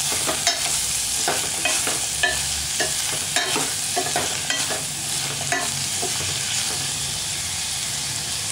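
Chopped onions, garlic and mustard seeds sizzling in hot oil in a steel pan while a metal spoon stirs them, scraping and tapping against the pan about twice a second. The spoon strokes die away about six seconds in, leaving the steady sizzle of the onions sautéing.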